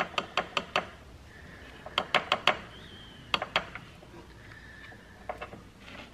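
Light clicks and taps of a glass jar and a rubber fuel hose being handled against each other, in several short runs of sharp ticks.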